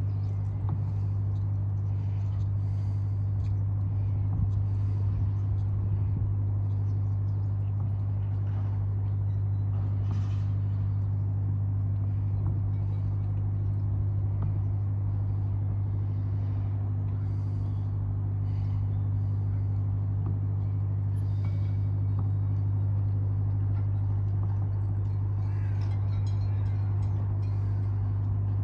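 A steady low mechanical hum, like a running engine or machinery, holding one pitch throughout, with faint scattered clicks above it.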